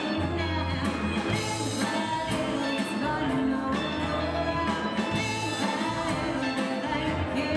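Live band music: a woman sings lead over acoustic guitar, with low bass notes held about a second at a time underneath.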